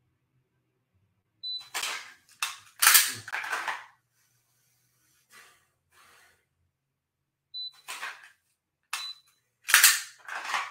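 Short high electronic beeps from a dry-fire training app's par-time timer, each followed by sharp clattering snaps of a pistol being drawn from its holster.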